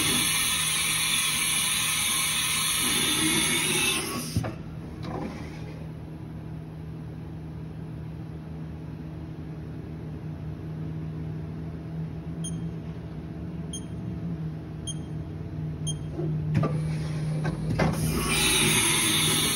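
A Haas TM-2 CNC vertical mill runs through its machine moves. A loud hissing machine noise lasts about four seconds, then drops to a steady low hum with four faint short high pips. The loud noise starts again near the end.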